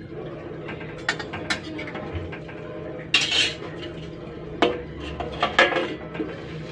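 Metal spoon clinking and scraping against a steel kadai of curry. Near the end a steel lid clanks down onto the pan with a few loud metallic knocks. A steady low hum runs underneath.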